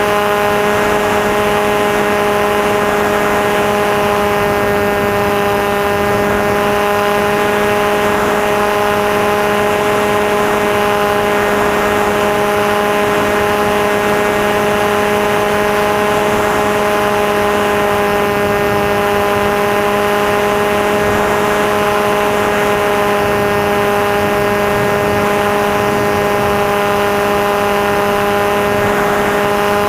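Electric motor and propeller of a Maxi Swift FPV model aircraft running at a steady throttle, a constant whine that holds its pitch.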